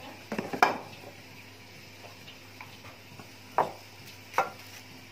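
A few clinks and knocks of metal cookware and utensils: a quick cluster about half a second in, then two single knocks near the end.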